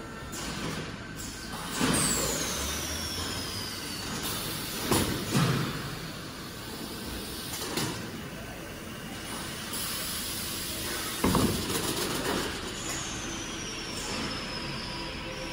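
Factory machinery of a melamine short-cycle hot press line running with a steady noise. Compressed air vents sharply from pneumatic cylinders about four times, the loudest bursts coming about five and eleven seconds in. A high whine falls in pitch twice, once near the start and once near the end.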